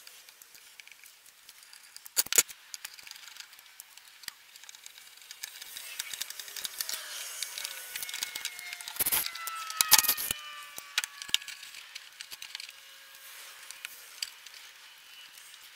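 Hand work with a screwdriver on a metal electrical switch box on a wooden workbench: screws backed out and dropped, the cover plate and small metal parts set down, in scattered clicks and clatter. Two loud knocks come a little past the middle.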